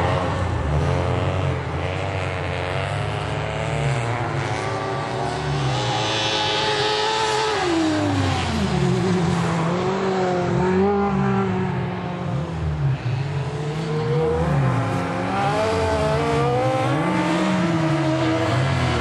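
Several race-car engines running at once, revving up and down with pitches that rise, fall and cross as the cars lap the ice track, one dropping away in a long falling note about halfway through.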